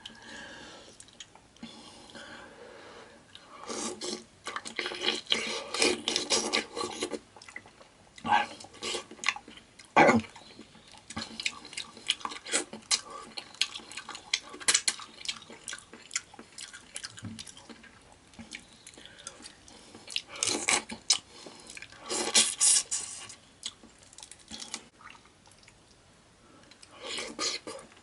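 Close-up eating of a seafood boil: wet smacking and chewing with crackling bursts of sticky, sauced food being handled, loudest in clusters about four seconds in, at ten seconds and around twenty seconds.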